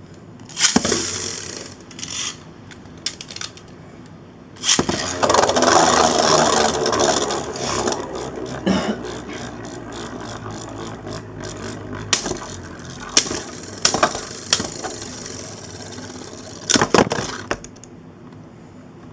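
Two Beyblade spinning tops, the Blizzard Gripper mod and Wolborg 4, launched and battling in a plastic stadium. Sharp launches near the start are followed by a whirring, scraping spin, then several sharp clacks as the tops collide. The spinning dies out near the end.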